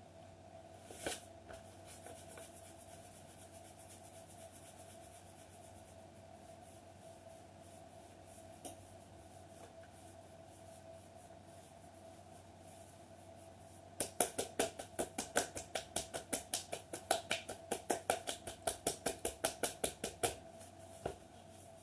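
Hands rubbing bare ankles softly, then about 14 s in, palms tapping rapidly on the ankles, about five pats a second for some six seconds, over a faint steady hum.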